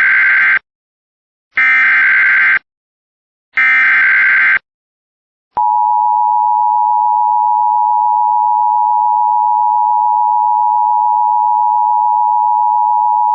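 Emergency Alert System SAME header: data bursts of about a second each, repeated every two seconds (the tail of one, then two more), followed about five and a half seconds in by the steady two-tone EAS attention signal held for about eight seconds.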